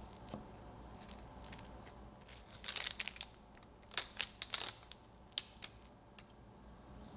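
Knife blade working through and out of a fudgy brownie's thin, crisp top crust: two short clusters of dry crackles a little under halfway in and again just after, then a single tick.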